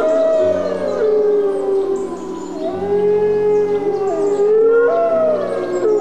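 A group of white wolves howling together in chorus: several long howls overlap, each sliding up and down in pitch and held for a second or more.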